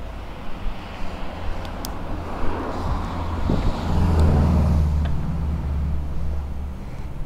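A car passing on the street alongside, its engine and tyre noise swelling to a peak about four seconds in and then easing, over a steady low rumble.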